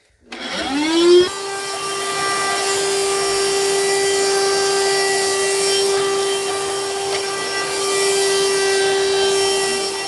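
Small cordless handheld vacuum cleaner switched on: its motor spins up with a rising whine in about a second, then runs steadily with a high whine and airflow hiss.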